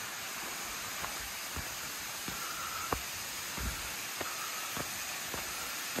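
Steady rushing hiss of a waterfall, with footsteps on a dirt path at a walking pace of nearly two steps a second.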